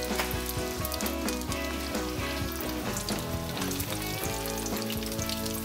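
Battered chicken pieces deep-frying in hot oil, a steady sizzle full of small crackles, with background music underneath.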